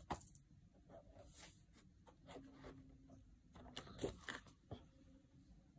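Pages of a spiral-bound photo desk calendar being flipped by hand: several quiet paper flicks and rustles, loudest about four seconds in.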